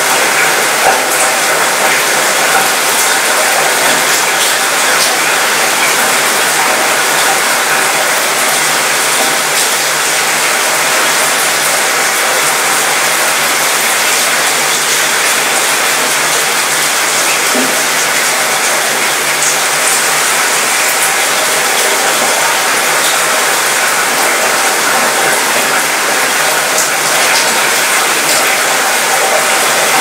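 Light rain falling on a cruise ship's mostly metal balcony, a steady patter that rattles around the metal, with scattered sharper drop ticks.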